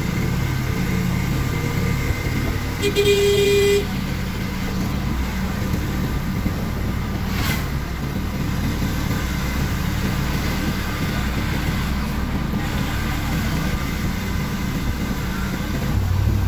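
Engine and road noise inside a moving vehicle's cab, with a vehicle horn sounding once for about a second, about three seconds in.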